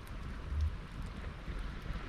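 Wood campfire of branches and driftwood burning, with a steady hiss and a few small crackles, over a low rumble of wind on the microphone that swells briefly about half a second in.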